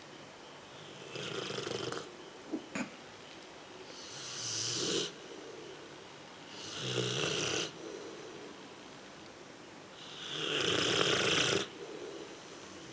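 A Rottweiler snoring in its sleep: four snores, each lasting about a second, coming roughly every three seconds. Two brief sharp sounds follow the first snore.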